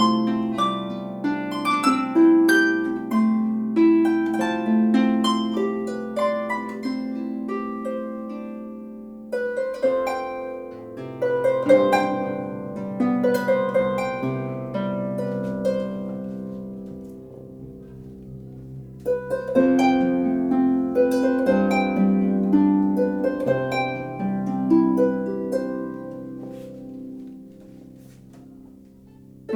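A 34-string Celtic harp played solo: plucked melody notes ringing over held bass notes, in phrases that start afresh about ten and twenty seconds in and die away near the end.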